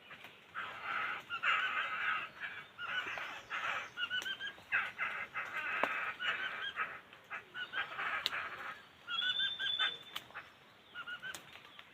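Laughingthrushes calling in repeated bursts of harsh, rattling chatter mixed with short clipped notes, with a brief whistled note about nine seconds in.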